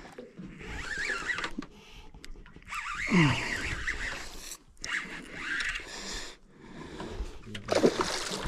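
Fishing reel and line working as a small fish is fought to the boat, with scraping and zipping sounds and the fish splashing at the surface near the end.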